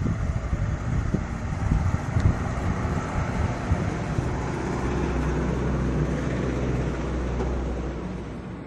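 A motor vehicle's engine running close by, a steady low hum under road and wind noise, fading away near the end.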